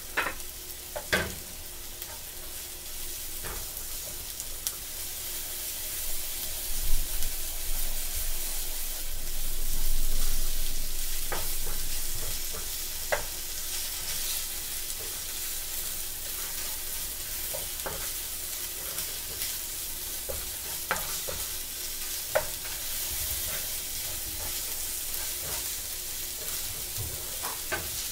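Sliced onions sizzling in a hot frying pan with a steady hiss, stirred with a wooden spatula that scrapes and clicks against the pan every few seconds.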